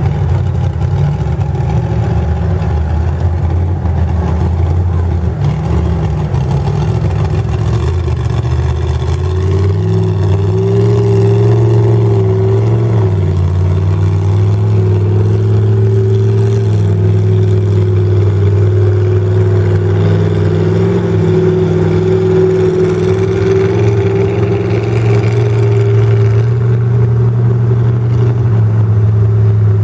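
Lifted pickup truck's engine pulling under load as the truck drives through a mud pond. The revs stay fairly steady with small wobbles, climbing a little and getting louder about ten seconds in.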